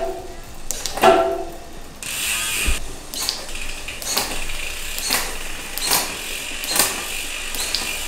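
Bicycle chain running over the rear cassette while a Shimano XT Di2 electronic rear derailleur shifts through the gears. A steady chain whir starts about two seconds in, with a sharp shift click roughly once a second. The shifting is clean.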